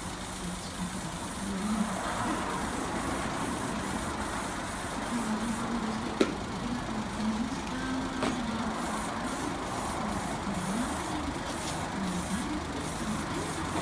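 Steady hiss of spray paint being applied to a steel car wheel, with a sharp click about six seconds in.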